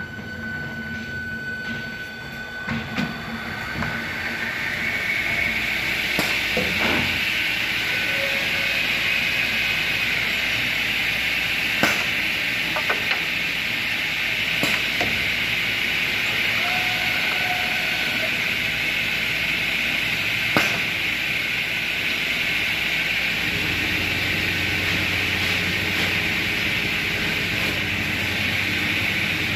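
RazorGage RazorOptimal optimizing saw's motor starting up, building over the first few seconds to a steady high whirring hiss. Scattered sharp clicks and knocks come from the machine, and a low hum joins about three-quarters of the way through.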